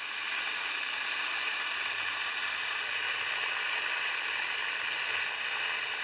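Steady rushing, hiss-like water noise that holds even throughout, with a faint low hum beneath it.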